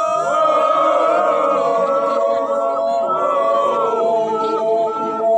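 A group of voices singing a traditional Kimyal welcome chant, holding overlapping notes together, with a high note repeating quickly about three times a second over them.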